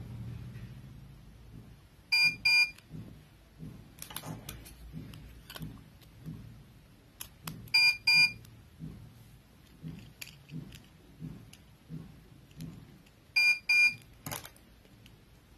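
An electronic beeper sounding a double beep three times, about every five and a half seconds, over faint clicks and taps of a metal keychain and its ring being handled.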